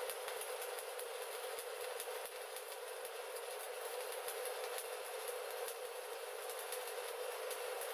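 Stick (SMAW) welding arc burning steadily on a steel pipe flange joint: a continuous crackle with many small pops.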